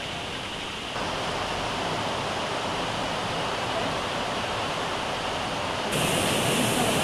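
Steady rushing of flowing water, a river or stream, with no distinct events; the rush steps louder about a second in and again near the end.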